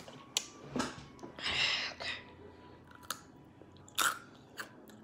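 Crunchy rolled tortilla chips (hot Takis) being bitten and chewed, a few separate sharp crunches with the loudest about four seconds in.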